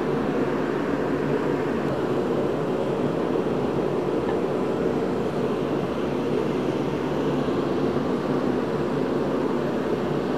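Steady, even whooshing hum of a running shop heater, with no changes in pitch or level.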